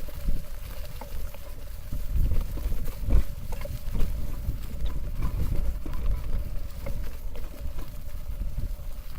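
Mountain bike rolling over a bumpy dirt forest track: a steady low rumble with frequent knocks and rattles.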